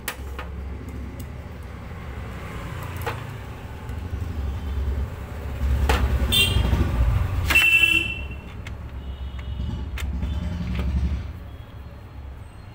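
Low engine rumble of passing road traffic, swelling to its loudest midway, with two short horn toots about six and a half and eight seconds in. A few faint clicks sound over it.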